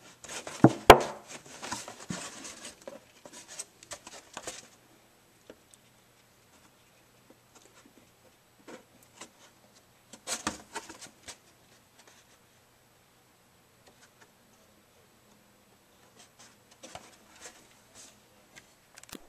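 Thin plastic water jug, a milk-jug type, being handled and turned over by hand: bouts of rubbing and rustling with a sharp click about a second in. A second bout of handling comes about halfway through, and faint rubbing near the end.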